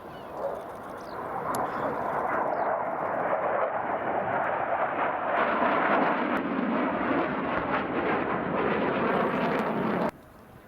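Mitsubishi F-2 fighter's jet engine roaring past, a broad rushing noise that builds over the first couple of seconds and stays loud, then cuts off suddenly about ten seconds in.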